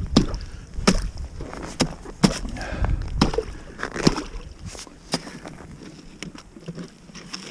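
Irregular sharp knocks and water sloshing as a long wooden-handled tool is jabbed into a water-filled hole through snow and ice, breaking up slushy ice; the knocks thin out in the second half.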